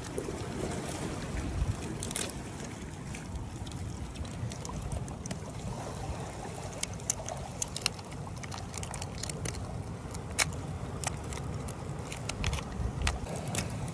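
Mussels being twisted and pulled off the rock by hand, their shells clicking and clacking against each other in short irregular clusters, over a steady low rumble of surf.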